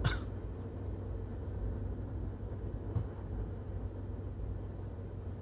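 Steady low vehicle rumble heard from inside a car, with a sharp click right at the start.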